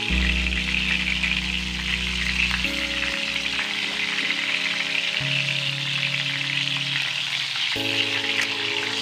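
Breaded chicken breasts shallow-frying in hot oil in a pan: a steady, even sizzling hiss. Soft background music chords run underneath, changing every few seconds.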